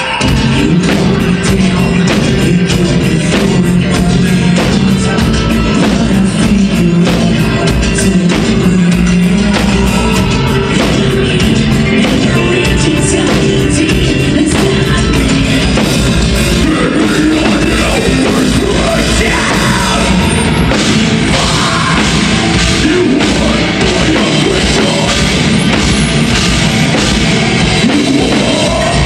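Live death metal band playing: distorted electric guitars and bass over fast drumming, with a vocalist singing into a microphone.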